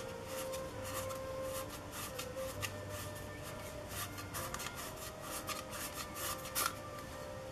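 Cloth rubbing and wiping a plastic petal-style screw-mount lens hood, with irregular scrapes and light knocks as the hood is turned in the hands.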